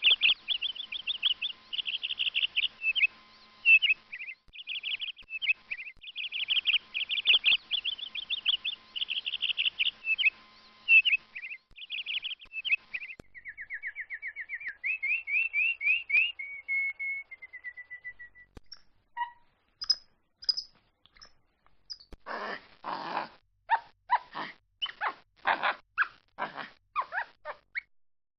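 Domestic canary singing fast, high-pitched trills and rolling phrases, ending in runs of quick repeated notes and a falling trill. About 22 seconds in it gives way to a capuchin monkey's series of about a dozen short, harsh calls.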